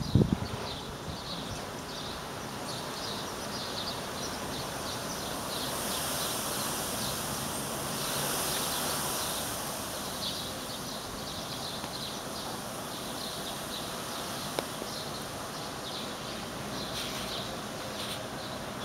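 Outdoor courtyard ambience: small birds chirping in quick, repeated short calls over a steady background noise, with a high hiss swelling between about five and ten seconds in. A few knocks sound at the very start.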